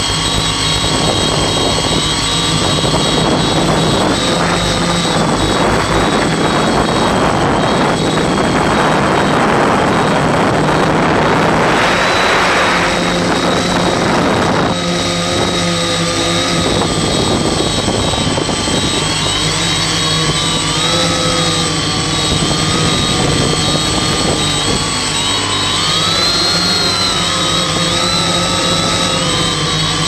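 Octocopter's electric motors and propellers whining steadily, their pitch wavering up and down with throttle changes. A rush of wind noise builds over the first half and drops away suddenly about halfway through, leaving the motor whine clear again.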